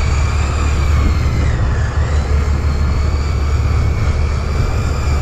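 Electric deep-drop fishing reel whining steadily as its motor winds line in against a fish on the bent rod, its pitch wavering slightly with the load, over a steady low hum.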